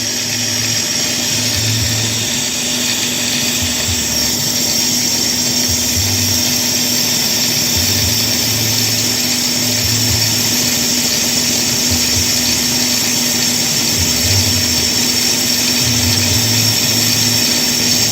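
Brake lathe running steadily as it refaces a brake drum, a constant motor hum with a high hissing note from the cut.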